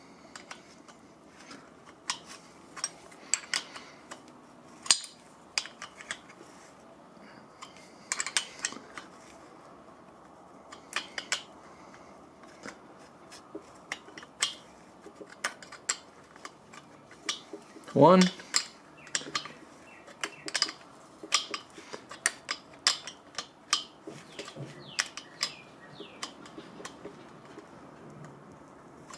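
Steel open-end wrenches clicking and clinking against an adjustable pushrod's adjuster and jam nut in irregular, sharp metallic taps, as the adjuster is turned to set pushrod length.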